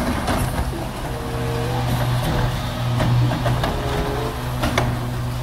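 Front-loading garbage truck with an automated cart-lifting arm: the diesel engine runs and gets louder about three seconds in as the hydraulic arm lifts a wheeled trash cart, with a few knocks from the cart and arm, the clearest near the end.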